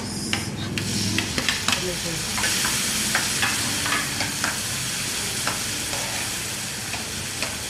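Chopped vegetables frying in a pan as chopped tomatoes are tipped in and stirred. The sizzle grows louder about two seconds in, with a spoon clicking against the pan at intervals.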